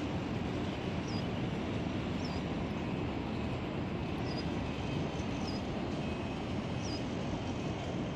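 Steady low rumble of wind buffeting the microphone high above the city. A small bird's short, high chirp repeats about once a second over it.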